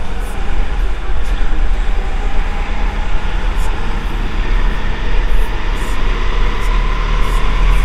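Go-kart running at speed, heard from an onboard camera: a loud, steady deep rumble under heavy noise, with a faint whine that climbs a little in the second half.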